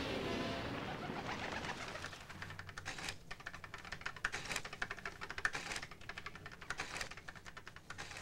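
Music fading out over the first second or two, then rapid, irregular clicking of keys being tapped on a desk office machine.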